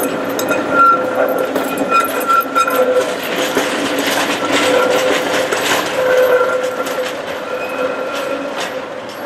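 Tatra trams passing through a junction: steel wheels clatter over points and rail crossings, busiest about halfway through, over a steady whine.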